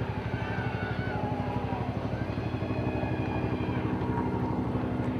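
A steady engine drone with a fast, even pulsing beat, over a faint murmur of crowd voices.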